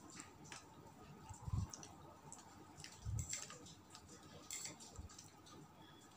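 Faint mouth clicks and ticks of someone eating very spicy food, with a few soft low thumps.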